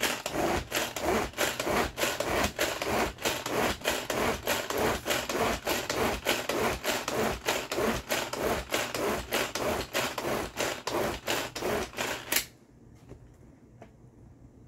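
Tupperware SuperSonic pull-cord chopper being worked fast, its blades whirring and churning a mix of partly frozen fruit, sugar, milk and cream into ice cream. The strokes are quick and regular, about three a second, and stop about twelve seconds in.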